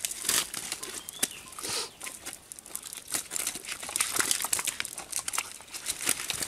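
Irregular rustling and crackling of dry leaves and a cast net as fish are shaken out of the net and gathered up from leaf-strewn mud.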